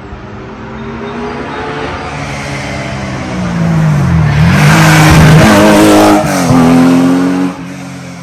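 Rally car on a special stage approaching at speed and passing close, its engine note rising and falling in pitch several times as the driver works the throttle and gears. The car is loudest in the second half, then the sound drops off sharply near the end.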